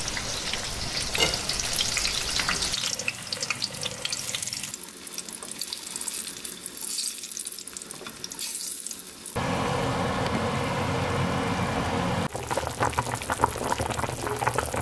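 Oil sizzling and crackling as eggplant and potato slices fry in a pan, cutting abruptly between stretches, then a pot of chicken broth with vegetables bubbling at a boil toward the end.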